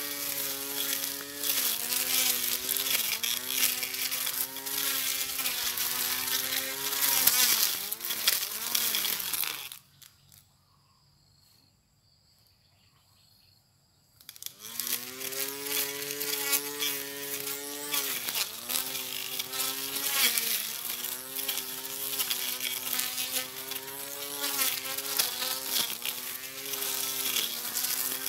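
Small electric motor of a portable battery grass cutter whining under load, its pitch dipping and wavering as it cuts, with a high hiss over it. About ten seconds in it winds down and stops, and some four seconds later it spins back up, rising in pitch, and runs on.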